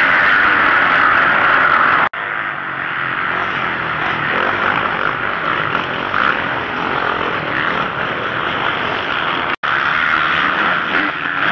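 Several motocross bikes' engines revving hard as riders race around the dirt track. The sound cuts off abruptly twice, about two seconds in and near the end.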